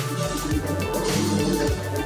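Background music: a pop song with a steady beat and bass line, between sung lines.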